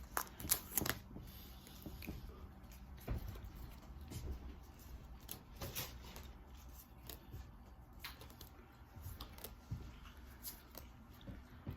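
Pokémon booster pack and trading cards being handled: faint, scattered rustles and clicks of the foil wrapper and cards, with a few louder ones at the start.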